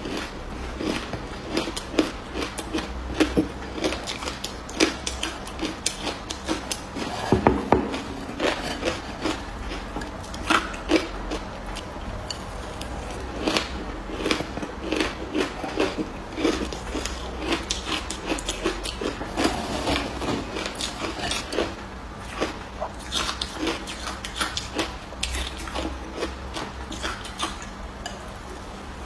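A person biting and chewing shaved ice close to the microphone: a continuous run of sharp, crisp crunches, several a second, with a burst of louder bites about a quarter of the way in.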